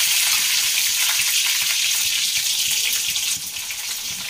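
Garlic and chopped dried red chillies sizzling in hot oil in a kadhai, a loud steady hiss that eases off a little after about three seconds: the spices spluttering at the tempering (tadka) stage.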